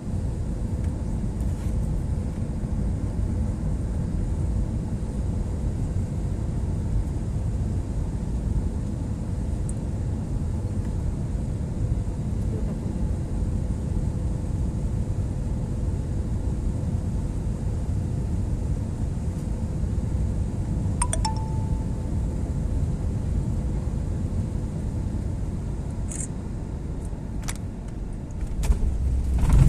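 Airliner cabin noise on approach to landing: a steady low drone of engines and airflow with a faint steady hum. A short chime-like tone sounds about two-thirds of the way through, and the rumble grows louder just before the end.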